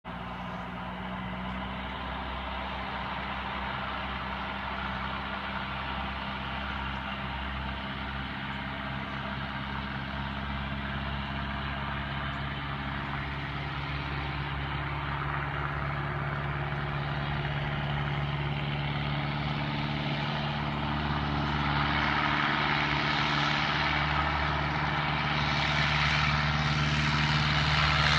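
Single-engine light aircraft's piston engine and propeller running at a steady pitch, getting steadily louder.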